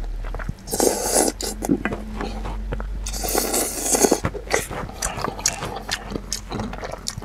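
A person slurping soup broth from a wooden spoon twice, about a second in and again around three to four seconds in, then chewing with many small wet clicks.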